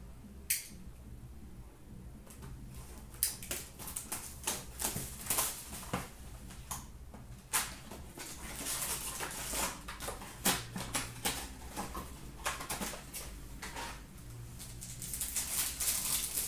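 Hands handling a cardboard trading-card hobby box and tearing open card pack wrappers: a string of sharp crinkles and clicks, with longer rustling rips about nine seconds in and near the end. A low steady hum runs underneath.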